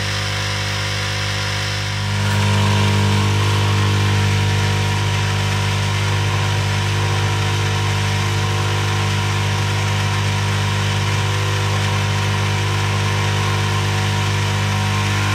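Hot air rework station blowing on a SIM card reader to melt its solder: a steady whir and hiss with a low hum, which gets louder about two seconds in.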